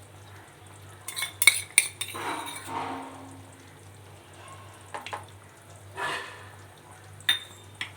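Metal spoon clinking a few times against a cooking pan, then scraping, as a spoonful of ghee goes into simmering kara kulambu. A faint steady hum runs underneath.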